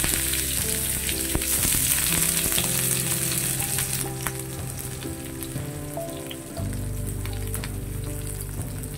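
Sliced onions sizzling in hot oil in a frying pan, just added. The sizzle is strongest at first and eases off after about four seconds.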